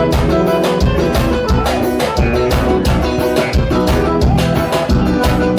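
Upbeat forró/piseiro band music with a steady kick-drum beat, about two beats a second.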